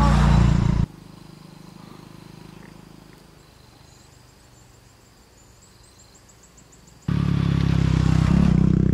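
Small motorbike engine running close by, cut off suddenly about a second in; a few seconds of quiet follow with faint high chirping. Near the end another small motorbike comes up loudly and passes close.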